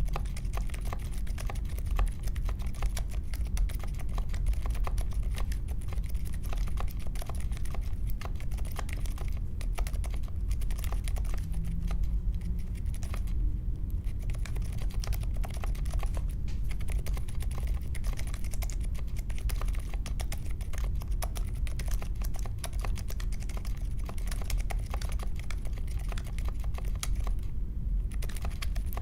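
Continuous typing on a mechanical keyboard with unlubed Akko CS Vintage White switches in an aluminium case with foam and tape mods and clipped stabilizers: a fast, dense stream of keystroke clacks with brief pauses twice.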